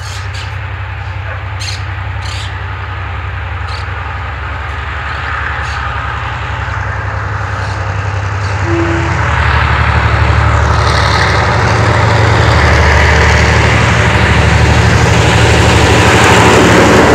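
GM G22CU diesel-electric locomotive's two-stroke diesel engine running with a steady low drone, growing steadily louder as the locomotive approaches, hauling a passenger train.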